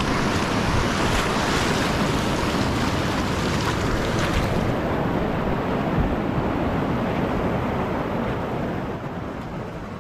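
Whitewater rushing around a kayak running a rapid, heard close up from the boat; the rush slowly eases over the second half.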